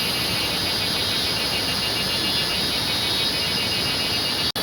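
Steady rush of a waterfall, with insects chirping in a fast, even pulse above it. The sound cuts out for an instant near the end.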